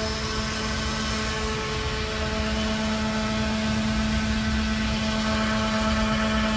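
A motor running steadily with a droning hum at one constant pitch, no change in speed.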